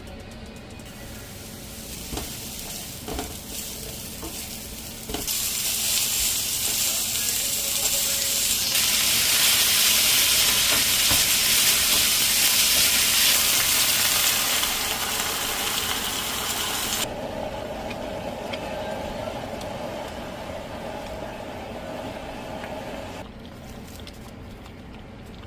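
Beef and hotdog frying in a pan for spaghetti sauce, sizzling while being stirred. The sizzle comes in loud about five seconds in and drops back sharply about two thirds of the way through.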